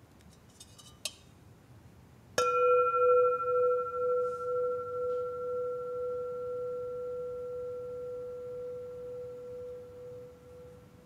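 A metal singing bowl is struck once with a striker about two seconds in and rings on, a low pulsing tone with a higher overtone, slowly fading away. A light click comes just before, about a second in.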